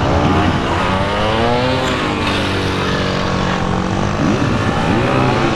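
Kawasaki Ninja 400's parallel-twin engine revving up and down under the rider's throttle. The pitch falls and rises several times and holds steady for a couple of seconds in the middle.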